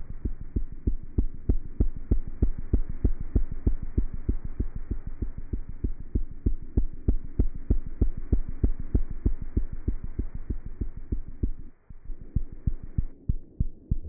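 A cat's heartbeat heard through a stethoscope: quick, regular low thumps, several a second, over a faint steady hum. The beats fade briefly just before the end.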